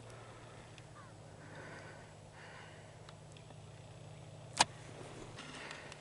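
A single sharp click about four and a half seconds in, over a steady low hum.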